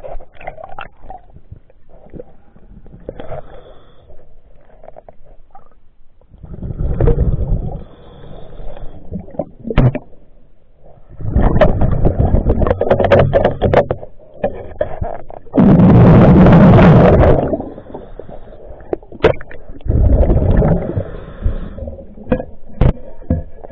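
Underwater, a diver's exhaled breath bubbling out of the regulator in loud bursts every few seconds, the loudest about two-thirds of the way through, with scattered clicks and knocks in between.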